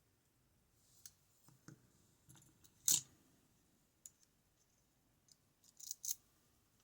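Scattered small clicks and taps of tools and lock parts being handled while a West 917 high-pin-count lock is taken apart to remove its pins and drivers. The loudest click comes about three seconds in, with a quick cluster of clicks near the end.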